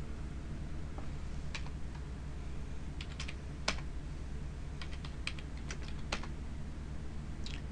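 Computer keyboard being typed on: about a dozen irregular keystrokes in short runs, one of them louder than the rest about halfway through, over a steady low hum.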